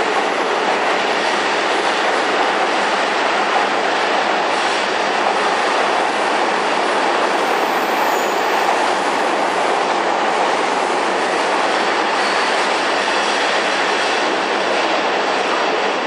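E259 series Narita Express electric train running along the platform as it pulls out, a steady loud noise of wheels on rails and running gear.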